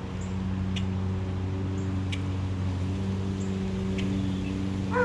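A steady low mechanical hum, like a motor running at a constant speed, with three faint ticks spread through it.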